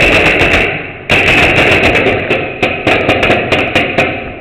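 Paintball markers firing a rapid string of shots, several pops a second, with the balls smacking against the walls.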